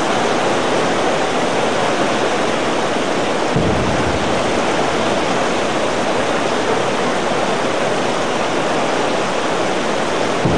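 Heavy tropical downpour: steady, dense rain hiss.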